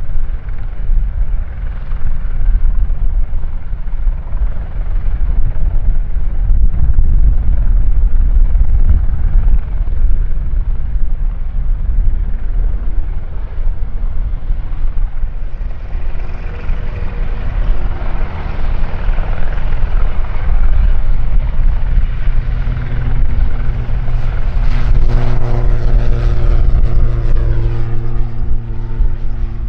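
Eurocopter EC120B Colibri helicopter running close by: a low rotor rumble mixed with turbine and tail-rotor noise. About halfway through the sound grows brighter, and a steady droning tone sets in for the last third.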